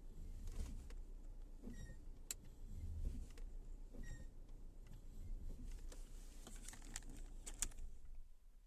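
Car brakes giving short, high squeaks with a whistling tone as the brake is released, twice about two seconds apart, over a low rumble, with a few clicks near the end.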